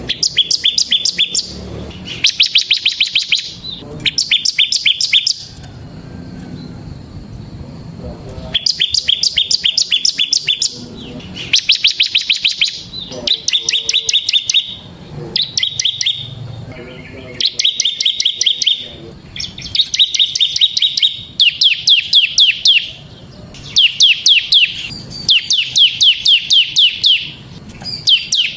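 Ciblek (bar-winged prinia) singing in a gacor drilling style: loud phrases of fast, high, evenly repeated notes, each lasting a second or two, repeated over and over with short pauses between.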